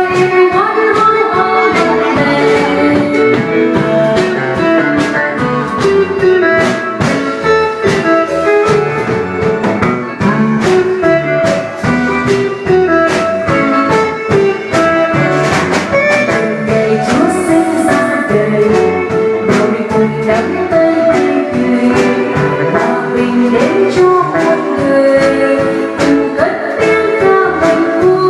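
A singer performing a song with a live band, the drums keeping a steady beat under the vocal melody and guitar.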